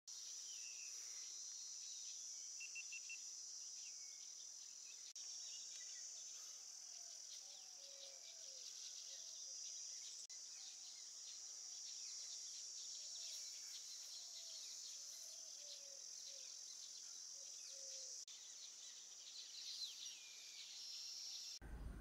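Steady high-pitched chorus of insects, with scattered bird chirps over it and a series of short low calls, each falling in pitch, through the middle. Just before the end it cuts abruptly to a low hum.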